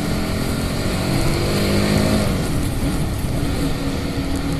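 Honda CBR150R's single-cylinder engine through its stock exhaust, riding along and pulling up in pitch about a second in, then easing back after two seconds. Wind rumble on the microphone runs underneath.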